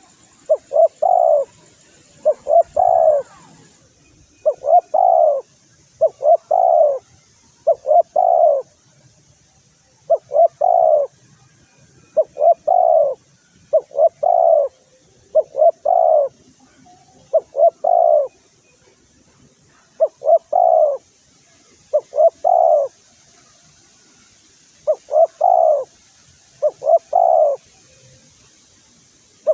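Spotted dove (tekukur) cooing over and over, short phrases of two or three coos about every one and a half to two seconds: the territorial call used as a lure to rouse rival doves. A faint steady high hiss lies underneath.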